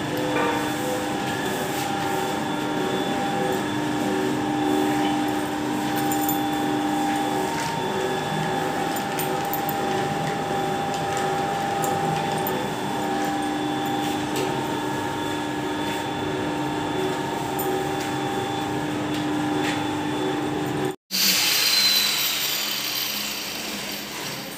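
A 14-roller automatic noodle-making machine running steadily: its motors and roller drive give a constant mechanical whine with several steady tones as the rollers sheet the dough and the cutter roller slices it into strands. About 21 s in the sound cuts off abruptly and is replaced by a hissier machine noise with a brief falling whine, which fades near the end.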